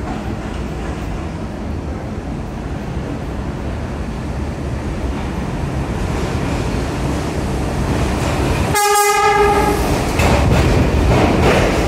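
R62A subway train approaching through the tunnel, its rumble growing steadily louder. About nine seconds in it sounds its horn once, a single pitched blast of about a second. It then rolls into the station alongside the platform, its wheels clacking over the rail joints.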